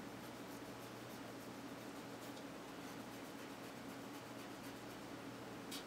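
Flux pen tip rubbing faintly along a solar cell's busbar, soft scratchy ticks with a sharper one near the end, over a steady low electrical hum.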